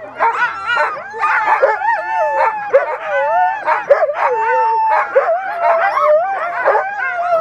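A yard of mixed-breed sled dogs barking, yelping and howling together, many voices overlapping at once: the excited clamour of sled dogs being harnessed before a run.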